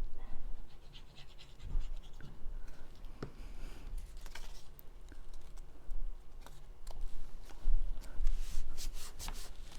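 Cardstock pieces being handled, pressed and folded by hand on a work surface: scratchy rubbing and rustling of paper with scattered small clicks and light taps, busier near the end.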